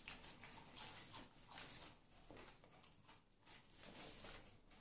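Faint chewing of a chilli pepper: soft, uneven wet mouth clicks and smacks.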